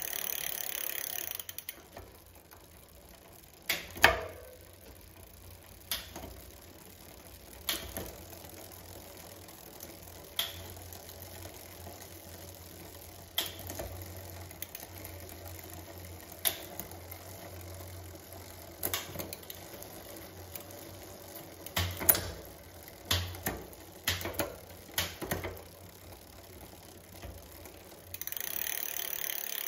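E-bike chain running on a spinning rear wheel over a seven-speed cassette as the freshly adjusted rear derailleur is shifted through the gears. Sharp clicks and clunks come every two to three seconds as the chain moves from cog to cog, the loudest about four seconds in and several close together near the end.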